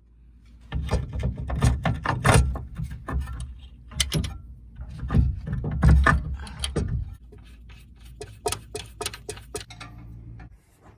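Repeated clanks and knocks with heavy low thuds from hands-on work on a car's rear shock and suspension, busiest for the first several seconds, then thinning to lighter clicks.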